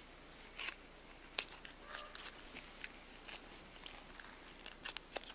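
Faint, scattered clicks and crackles of a knife cutting elk hindquarter meat away from the hip bone.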